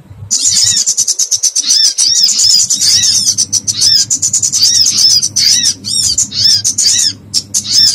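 Bird-lure recording of small birds giving distress calls as if caught and pinched: rapid, high-pitched arched chirps and squeaks in a dense, unbroken chatter, over a low steady hum.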